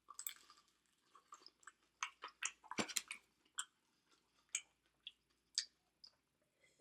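A person chewing food with the mouth close to the microphone: irregular wet clicks and smacks, busiest around two to three seconds in.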